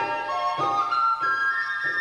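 Live instrumental music: a flute plays a sustained, stepwise melody over keyboard chords struck in a steady pulse, a little under two a second.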